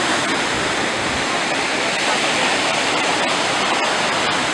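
Sea surf: a steady, unbroken rush of waves washing on the shore.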